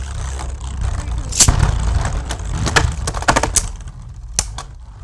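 Two Beyblade Burst Speedstorm plastic spinning tops, Curse Satomb against Super Hyperion, whirring as they spin around a plastic stadium, with sharp clacks each time they collide, several times. The whirring fades near the end as the tops slow down.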